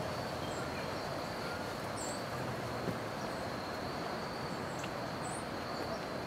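Woodland ambience: a steady, high insect drone with a few short, high bird chirps, about two seconds and five seconds in, over a steady background noise.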